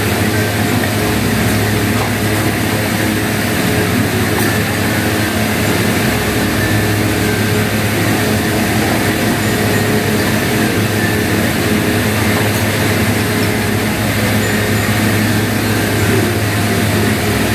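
Electric fan running with a steady whirring drone and low hum.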